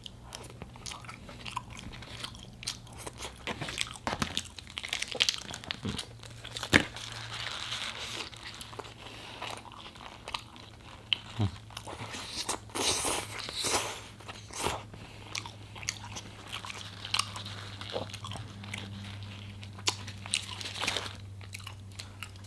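Chewing and biting of a burger and fries, full of short wet clicks and crunches, over a steady low hum.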